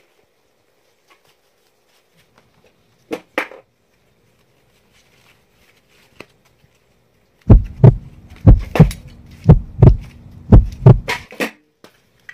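Gloved hands handling tools and a WD-40 aerosol can on an aluminium workbench. A couple of light clicks come first, then about ten heavy, dull thumps in quick succession over some four seconds.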